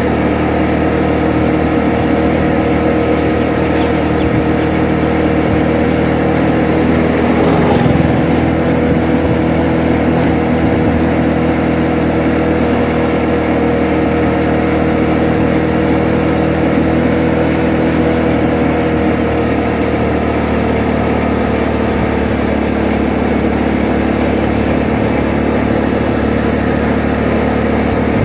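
Motorcycle engine running steadily while the bike is ridden along a road, heard from the rider's seat. There is a brief louder swell about eight seconds in, and the engine note dips slightly about twenty seconds in.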